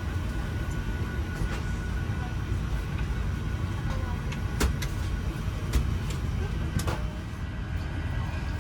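Steady low rumble of an airliner cabin's ambience, with a faint steady high tone and a few sharp clicks about halfway through.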